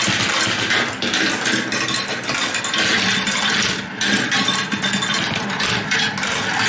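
Glass marbles rolling down wavy grooved wooden marble-run tracks, several at once: a steady rolling rattle with many small clicks as they swing through the curves.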